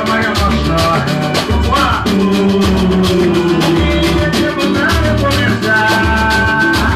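Band music with a busy, steady percussion beat over a pulsing bass line and held melodic notes.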